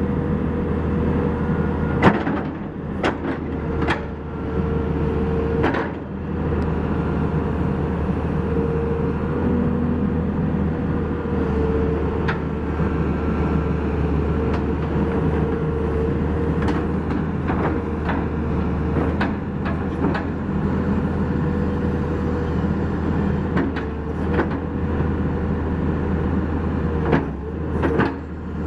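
Caterpillar 321C excavator's diesel engine running steadily with a steady tone over it, broken by several sharp metal clunks, a few within the first six seconds and a couple more near the end.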